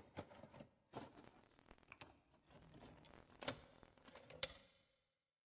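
Faint, irregular clicks and knocks over a rustling noise, dying away about five seconds in.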